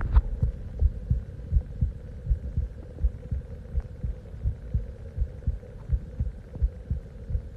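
A person's heartbeat picked up by a phone microphone pressed against the chest: a regular run of low, muffled thumps, about two to three a second, over a faint steady hum.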